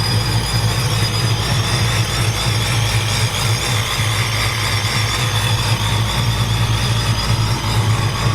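Engine idling steadily with an even low drone, freshly started and running while its newly built fuel system is checked for leaks.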